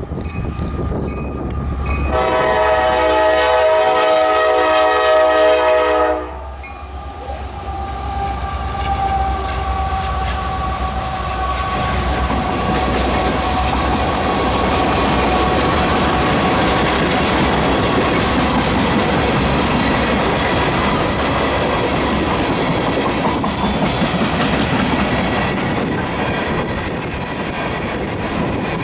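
Freight locomotive's multi-note air horn sounding one long blast about two seconds in, cut off sharply some four seconds later. The locomotives then pass with engines running, followed by the steady rumble and clickety-clack of a train of empty ethanol tank cars rolling over the rail joints.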